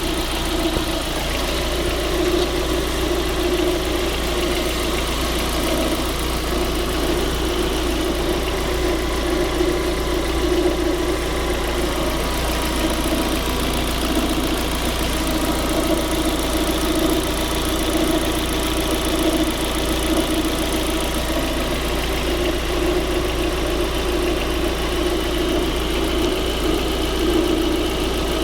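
Car engine idling steadily, with an even mid-pitched hum and low rumble that do not change.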